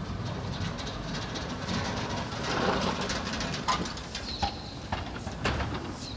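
Street ambience: a steady traffic hum that swells as a vehicle passes about halfway through, followed by scattered sharp clicks and a short high chirp.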